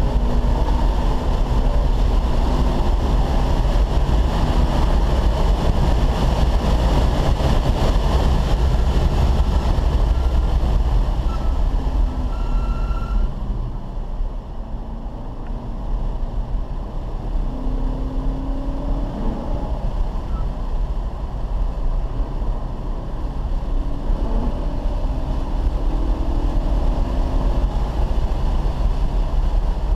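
Car engine and tyre and wind noise heard from inside the cabin as the car is driven hard on a race track. The engine pulls loudly for the first dozen seconds, eases off about halfway through, then its note rises and drops repeatedly.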